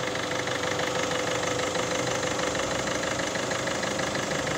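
PSA 1.6 HDi diesel engine idling steadily while still cold and warming up. It runs with a freshly replaced upper camshaft chain and tensioner, and no metallic chain rattle stands out.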